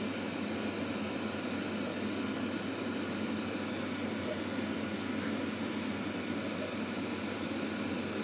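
Steady room noise: a low hum with an even hiss over it.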